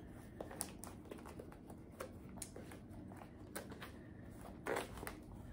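Faint handling noises of a handbag being turned over and examined: scattered small clicks and light rustles, with a slightly louder brush of noise near the end.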